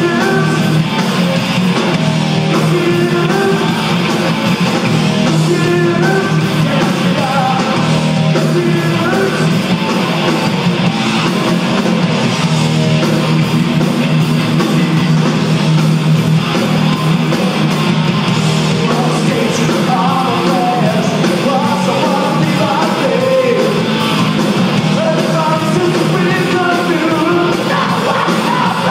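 Heavy metal band playing live: distorted electric guitars, bass guitar and a drum kit, loud and unbroken.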